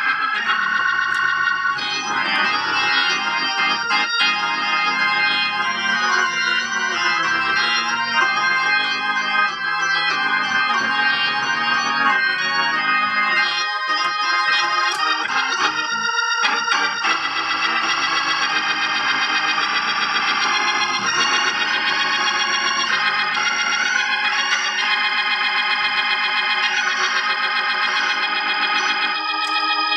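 Organ music played through a Leslie rotating-speaker cabinet driven by a freshly rebuilt Leslie 122 amplifier: sustained, changing chords with a wavering tone, the amplifier working cleanly.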